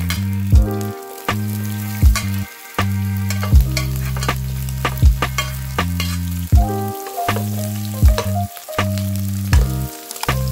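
Lofi background music with a steady beat and held chords, a kick landing about every second and a half. Under it runs a crackling sizzle of food frying in oil in a pan.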